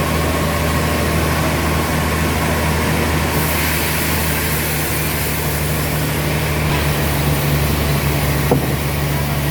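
Sawmill machinery running steadily with a constant low engine hum, with a stretch of added high hiss in the middle and a single sharp click near the end.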